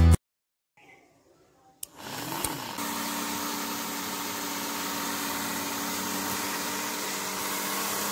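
A click about two seconds in, then a small electric motor spins up, rising in pitch, and settles into a steady whir.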